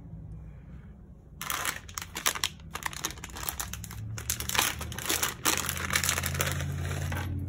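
Thin white plastic packaging wrapper being pulled open and crinkled by hands, a dense, irregular crackling that starts about a second and a half in.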